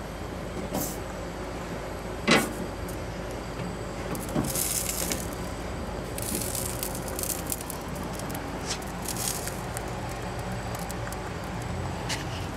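Hatch green chiles being laid on a hot grill's metal grate: short hisses and sizzles over a steady low hum, with one sharp knock about two seconds in.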